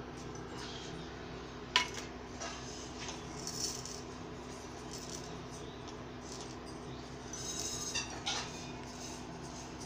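Fingers picking mustard seeds out of whole panch phoron spices on a small steel plate and dropping them into a little steel bowl: scattered faint clicks and taps of seeds and metal. There is one sharp click about two seconds in and a few more near the end, over a steady low hum.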